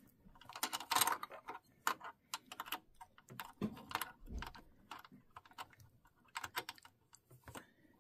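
Irregular light clicks and taps of the metal shuttle against the shuttle race of a Kenmore sewing machine as it is worked into place, with a dull thump about four seconds in.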